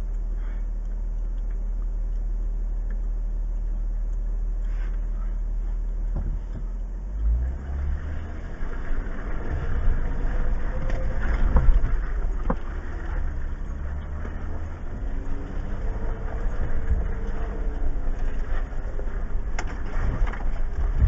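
2015 Jeep Wrangler Unlimited Rubicon's 3.6-litre V6 ticking over low and steady, then pulling harder about seven seconds in, its pitch rising and falling with the throttle as it crawls up a rutted trail. It is heard from inside the cabin, with occasional sharp knocks and clunks as the Jeep works over the rocks.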